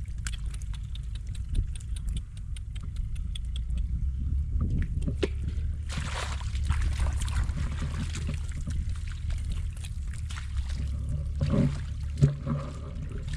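Water sloshing and splashing in a rice field, with a steady low rumble underneath and small clicks, then a few knocks near the end.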